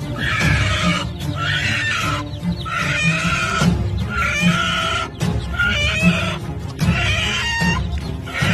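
Music with a steady beat, over which a chicken clucks in short repeated calls about once a second or faster.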